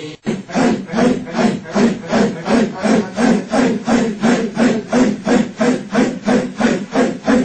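Group chanting of a Sufi dhikr: many voices pushing out harsh, breathy grunts in unison in a fast, steady rhythm, about three a second.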